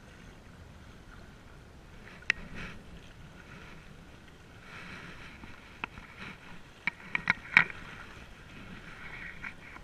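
Small waves lapping and splashing against a rocky lake shore, with a single sharp click about two seconds in and a quick run of sharp clicks about seven seconds in.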